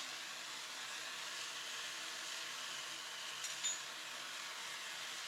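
A forge running with a steady, even hiss, with a faint low hum under it. A couple of small faint ticks come about three and a half seconds in.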